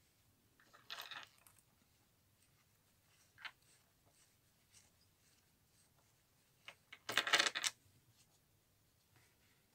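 Silver Pandora charms and charm bracelet clinking as they are handled and set down on the table. There is a short jingle about a second in, a single click a little later, and a louder rattle near the end.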